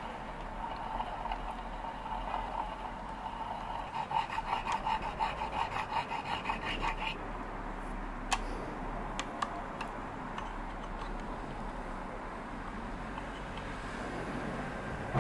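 Small lathe running while an abrasive stone is stroked along a spinning steel clock pivot to polish it, a rhythmic rubbing at about three or four strokes a second that stops about seven seconds in. A few light clicks follow, then the lathe runs on.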